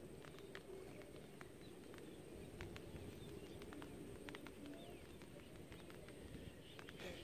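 Faint rural outdoor ambience with birds calling, including a few short high chirps, over a steady high hiss and scattered faint ticks.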